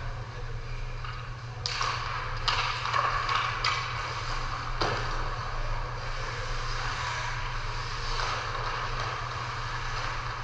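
Ice hockey play: skate blades scraping on the ice, with four sharp clacks in the first half, over a steady low hum.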